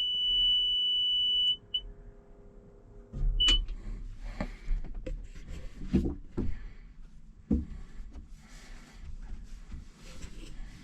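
A high electronic warning beep held for about a second and a half, then two short beeps. This is typical of a machine's ignition being switched on to read the fuel gauge. Irregular knocks and clunks follow.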